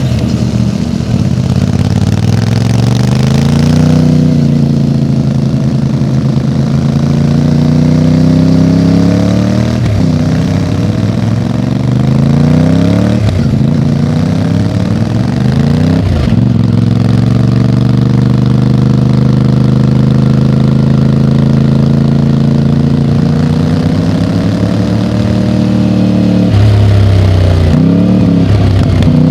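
MT450's engine idling and being revved several times, its pitch rising and falling with each rev before settling back.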